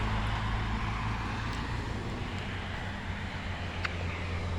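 Steady low engine hum of a motor vehicle, easing off slightly, over road noise.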